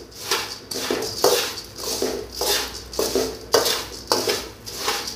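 Metal spoon stirring dry puffed rice in a large metal pan: a rhythm of scraping strokes about twice a second, each with a rustle of the puffed rice.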